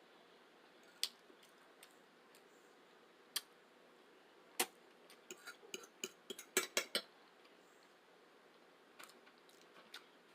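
Eating utensils clicking and tapping against a dish: a few separate sharp taps, then a quick run of clicks about halfway through, and a few fainter taps near the end.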